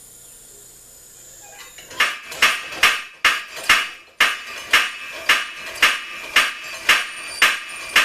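Homemade belt-driven power hammer (trip hammer) starting up, its ram then striking steadily about twice a second with sharp metallic blows.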